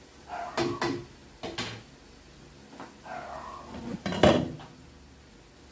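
Cooking pots and utensils knocking and clattering on a gas stove: a few separate knocks and scrapes, the loudest about four seconds in.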